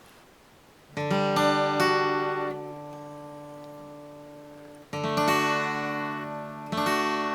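Acoustic guitar strumming chords. A first chord comes in about a second in with a few quick strokes and is left to ring and fade, then strumming picks up again about four seconds later.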